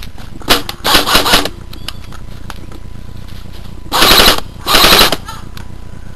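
G&G Combat Machine M4-A1 electric airsoft rifle firing on full auto in short bursts: a brief one about half a second in, another around one second, then two more around four and five seconds.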